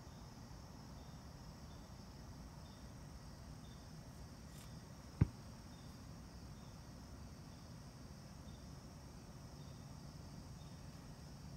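An insect chirping faintly in short, evenly spaced high chirps, about every two-thirds of a second, over a low steady hiss. A single sharp click about five seconds in.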